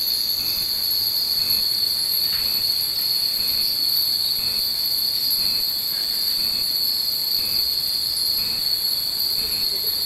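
Many Japanese wind chimes (fūrin) tinkling in the breeze, set against a steady, high drone of insects.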